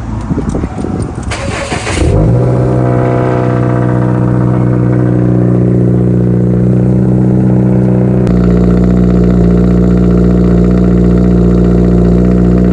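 Subaru WRX's turbocharged flat-four engine starting about two seconds in, then idling steadily; its low note gets stronger about eight seconds in.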